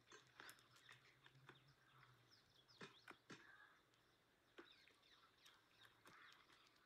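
Near silence: faint small birds chirping, with a few soft snaps and rustles as leafy greens are picked by hand.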